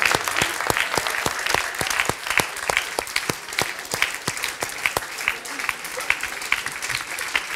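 Audience applauding: many people clapping in a dense, steady patter that eases off slightly toward the end.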